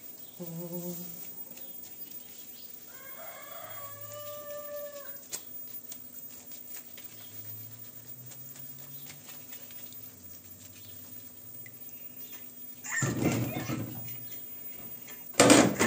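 A rooster crows once, a few seconds in. Near the end, water splashes loudly twice as washed food is drained and shaken in a plastic colander over the sink.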